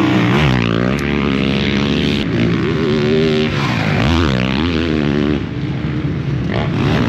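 Yamaha YZ450F's single-cylinder four-stroke engine being ridden hard, revving up and down over and over as the throttle opens and closes.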